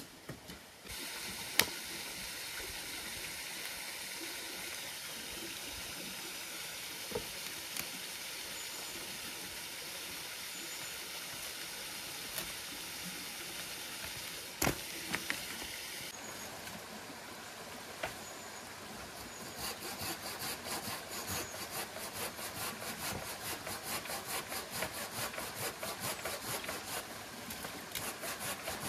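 A steady hiss with a few sharp clicks. From about twenty seconds in, a hand saw cuts through wood in even back-and-forth strokes, about three a second, with a short pause near the end.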